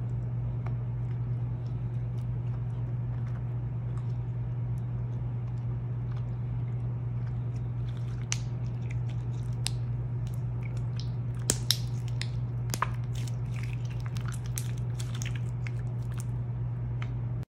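Slime being squeezed and kneaded in the hands, giving scattered wet clicks and small pops that grow thicker from about halfway, the loudest about two-thirds of the way through. A steady low hum runs underneath.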